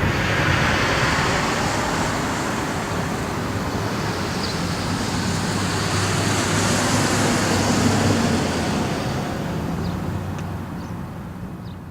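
Federal Signal 2T22 siren's modulators running: a steady whirring rush with a low hum and no siren tone, fading out near the end.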